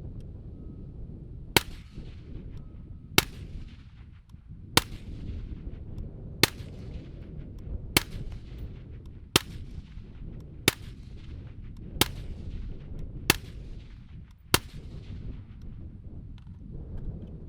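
Ten suppressed 5.56 rifle shots from an M4 fitted with a Knight's Armament NT4 suppressor, fired slowly at about one every second and a half, each shot followed by a short fading tail. Wind rumbles on the microphone underneath.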